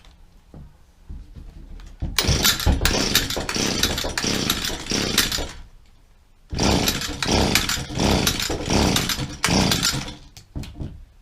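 Echo SRM-230 brush cutter's small two-stroke engine, on choke with a freshly fitted carburetor, firing and running roughly for about three seconds, then cutting out, and doing the same again about a second later.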